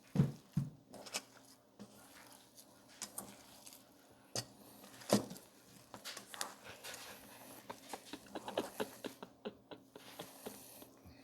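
Ground beef patty mixture being mixed in a bowl: soft, quiet squishing with scattered light clicks and knocks, the loudest right at the start and about five seconds in.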